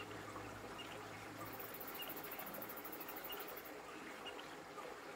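Steady murky water noise through a camera held underwater, with faint short chirps about once a second and a rapid high buzzing pulse train in the middle for about two seconds.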